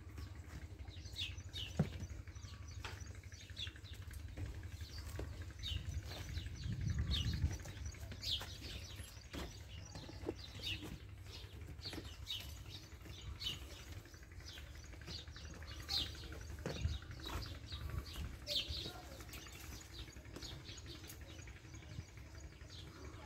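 Small birds chirping over and over in short, falling chirps, over a steady low rumble that swells briefly about seven seconds in.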